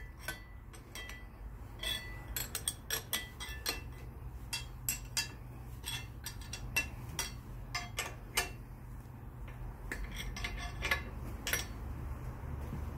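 Metal spanner clinking on bolt heads and the steel pulling plate as the bolts are turned a little at a time to jack the cylinder block up off the crankcase: a string of irregular, sharp metallic clicks. A low steady hum runs underneath.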